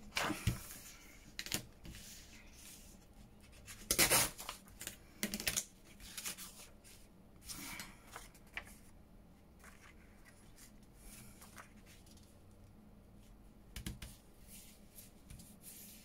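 Paper scraps being handled and shifted about on a work surface: scattered rustles and light taps, the loudest rustle about four seconds in.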